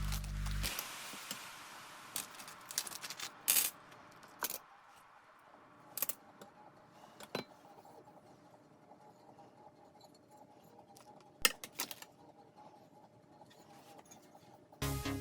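Scattered clicks, light rattles and a few sharper knocks of small metal and plastic parts being handled while assembling a laser engraver frame. Background music with a steady beat fades out near the start and starts again near the end.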